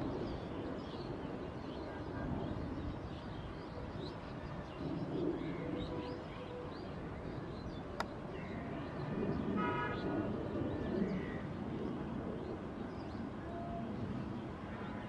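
Distant jet rumble from a MiG-29 flying overhead with its landing gear down, a steady airy roar from its two turbofan engines. Small birds chirp faintly throughout, and a short horn-like toot sounds about ten seconds in.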